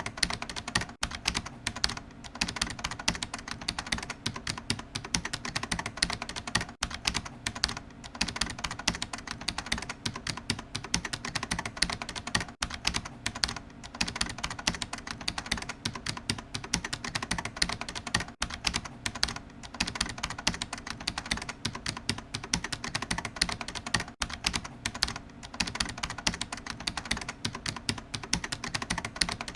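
Computer keyboard being typed on: fast, continuous keystrokes, several a second, with short pauses every few seconds.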